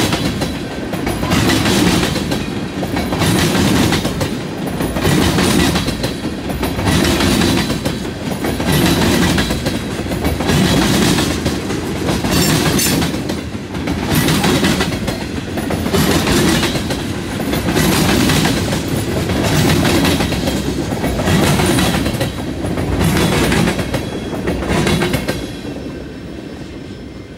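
Freight train tank cars rolling past at reduced speed, their wheels beating a regular clickety-clack about once a second. The sound fades away near the end as the last car goes by.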